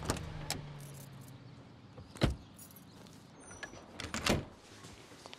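A house door opening and shutting: sharp clicks, a loud clunk about two seconds in, and a clattering knock and rattle near the end. A short high chirp falls between them.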